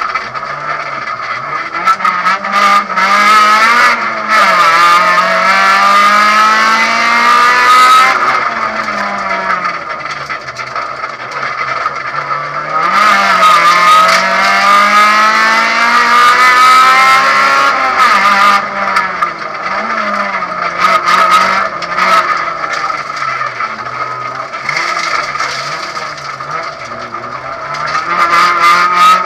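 Honda Civic rally car's four-cylinder engine, heard from inside the cabin, pulling hard under full throttle. Its pitch climbs through each gear and drops sharply at the upshifts, with shorter lifts and re-acceleration through the corners.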